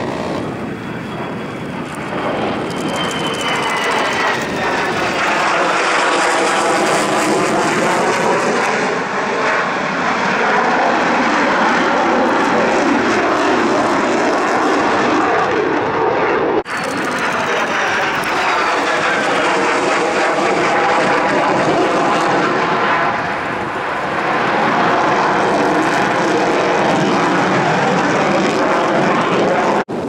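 Loud jet noise from a Mitsubishi F-2 fighter's single F110 afterburning turbofan as the jet maneuvers overhead, the tone sweeping slowly up and down as it passes. About seventeen seconds in the sound breaks off abruptly and starts again at a different point, as at a cut.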